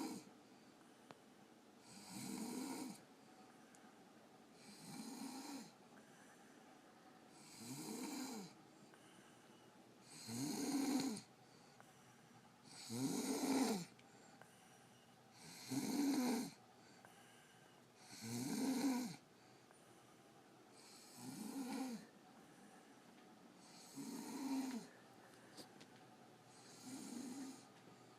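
A woman snoring in her sleep: regular snores about every two and a half to three seconds, the ones in the middle louder than those at the start and end.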